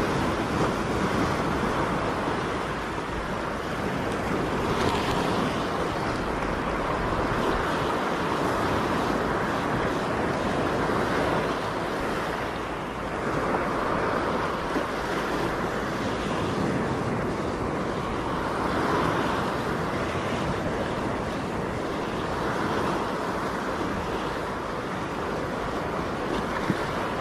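Sea waves breaking and washing over rocks, a steady surf noise that swells and eases every few seconds.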